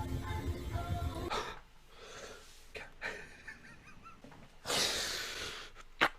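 Music cuts off about a second in, followed by a few short, breathy hissing sounds. The longest and loudest comes about five seconds in, and there is a sharp click just before the end.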